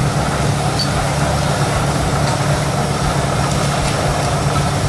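A steady low rumble, like an engine idling, unbroken throughout.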